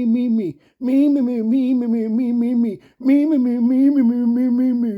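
A voice chanting "me, me, me" over and over in rapid succession on a nearly steady pitch, breaking off briefly for breath about half a second in and again near three seconds.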